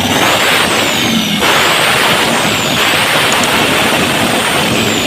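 Diesel engine running loudly, a rushing hiss with a thin high whistle that glides slowly up and down.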